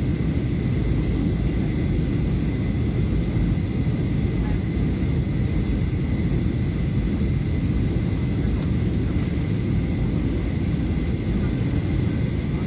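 Steady cabin noise of a Boeing 737-800 in flight: the low rumble of its CFM56 engines and the airflow, with a faint steady high tone above it.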